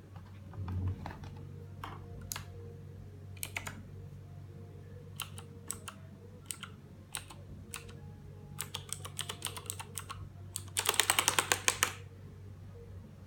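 Keys being pressed on a Redragon K300 mechanical keyboard with clicky blue switches: scattered single key clicks, then a fast burst of typing for about a second near the end, over a faint steady low hum.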